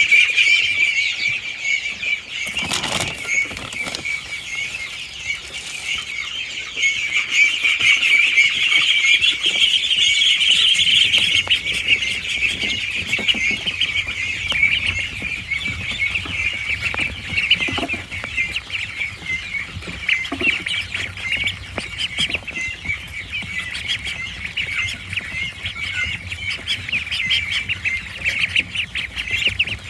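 A pen of ducklings peeping together in a dense, continuous chatter of many overlapping calls while they gobble up a handful of wet crumble feed.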